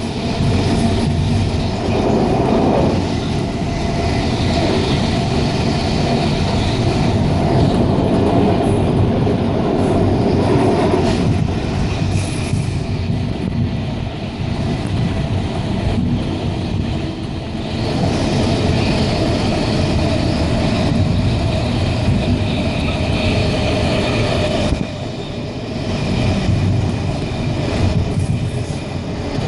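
Electric passenger train running at speed on the track, heard from inside the carriage: a steady rumble of wheels and running gear, with a short dip in level near the end.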